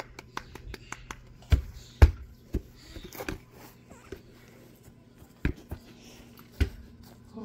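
A football being kicked on a grass lawn: several dull thuds spread through the seconds, the loudest about two seconds in, with a few faint light clicks near the start.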